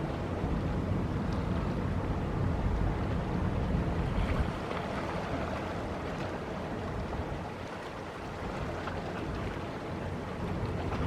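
Wind buffeting the microphone at the waterfront: a steady low rumble with no engine tone, easing off a little about two-thirds of the way through.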